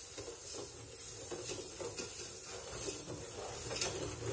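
A spoon stirring sugar and water in a steel pan, scraping the pan in a run of light, irregular strokes while the sugar dissolves for syrup.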